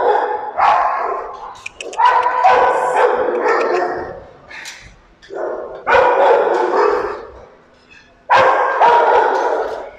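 Rottweilers barking in the kennel runs, in repeated loud bouts of one to two seconds with short pauses between.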